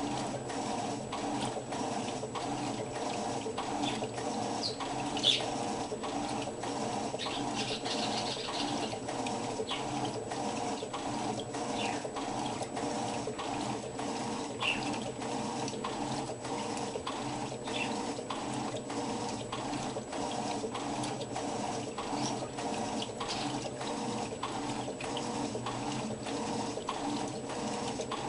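Electrolux washing machine running: a steady motor hum with a regular tick or knock about twice a second.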